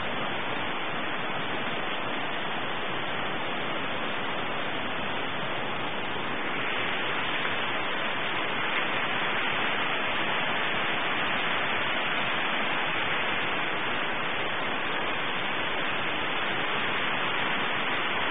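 Steady rushing of a brook's flowing water, growing a little louder and brighter about six seconds in.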